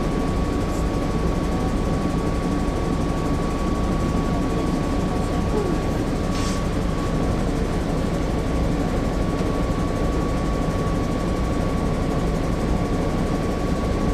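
Cummins C8.3 diesel engine of a 1996 Nova Bus RTS running steadily, heard from the rear seats inside the bus, a low drone with a thin steady high tone above it. A short hiss comes about six seconds in.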